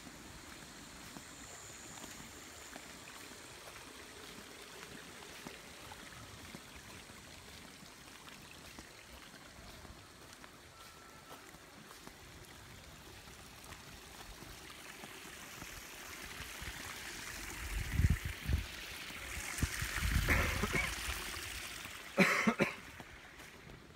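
Faint steady trickle of water, with low buffeting thumps on the microphone in the second half and a brief cough about two seconds before the end.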